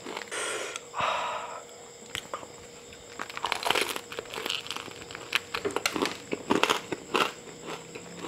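Person eating a rolled rice paper (bánh tráng) snack close to the microphone: a couple of crinkly rustles in the first second or so, then a run of small crackling chewing clicks.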